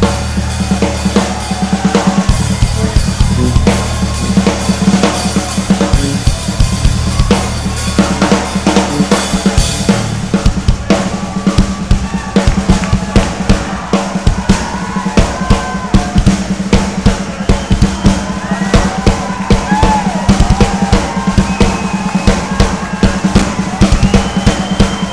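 Live drum kit solo: fast, dense strokes across toms, snare and bass drum with cymbal hits. The bass drum is heavy for the first ten seconds or so, and a steady low hum sits underneath.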